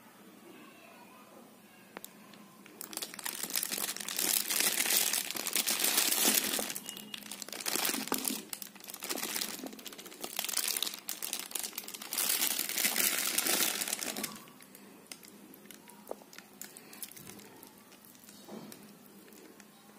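Foil-lined takeaway food pouch crinkling in loud bursts as it is opened and emptied, from about three seconds in until about fourteen seconds. After that there are only faint small handling sounds.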